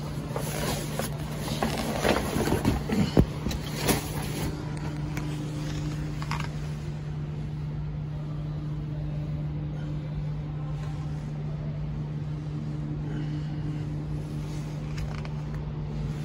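Jeep CJ7 engine idling steadily, heard from inside the cab, with a few knocks and rustles during the first few seconds.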